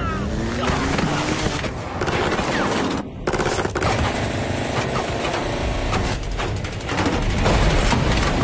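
Film-soundtrack automatic rifle fire: repeated bursts of rapid shots, with the densest runs about halfway in and again a few seconds later.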